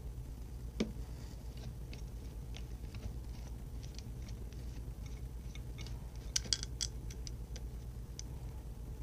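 Small metallic clicks and taps as lathe change gears and their bushings are handled and worked off a stud, over a steady low hum. There is a knock about a second in and a quick cluster of sharper clicks past the middle.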